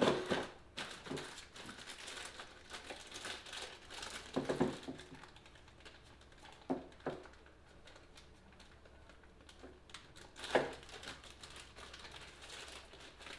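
Plastic bag crinkling and rustling as a new mechanical fuel pump is unwrapped by hand, with a few sharper knocks of the part and its cardboard box against the workbench.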